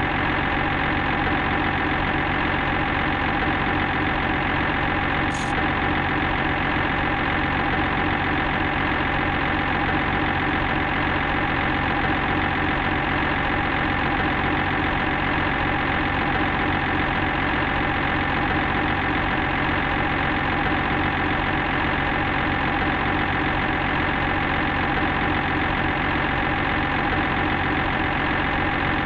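A construction machine's engine idling steadily and evenly, with one short high click about five seconds in.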